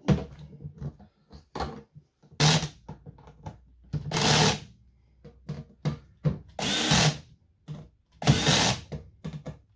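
Cordless drill-driver running in four short bursts of about half a second, driving screws to fix the hinge on a plastic kayak crate's lid, with clicks and knocks of handling between the bursts.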